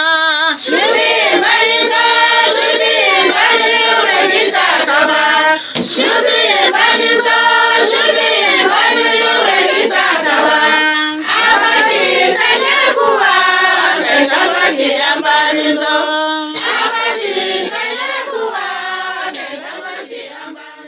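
A group of voices singing a song in the Ninzo language, with sharp claps or beats, fading out near the end.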